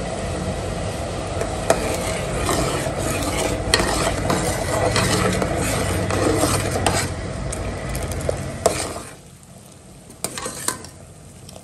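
Metal spoon stirring sugar syrup in a metal pan, scraping and clinking against the sides, with the hot syrup sizzling. About nine seconds in it drops off sharply to a quieter bubbling with a few light clinks.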